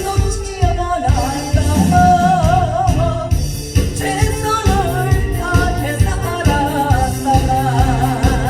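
A solo voice singing with a wavering vibrato over a backing track with a steady beat and bass.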